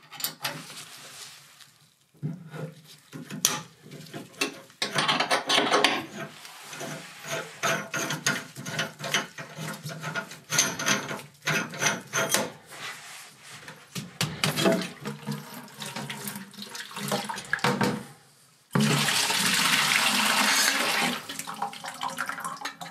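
Metal clicks and scrapes as a stainless side-stream filter housing is worked loose from its head on a boiler's piping, then a steady rush of dirty boiler water pouring out of the housing into a plastic bucket for about two seconds near the end.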